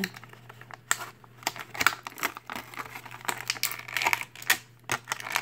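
Clear plastic blister tray of an action-figure package crackling and clicking as it is flexed and handled, in irregular sharp clicks and crinkles.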